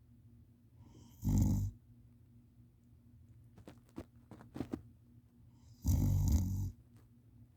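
A sleeping person snoring loud: two snores, a short one about a second in and a longer one about six seconds in. A few faint clicks fall between them.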